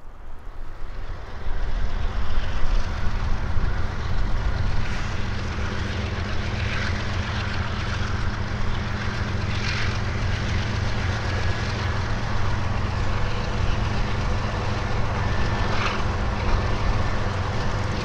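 Blizzard wind blowing hard and steadily, with a heavy low rumble.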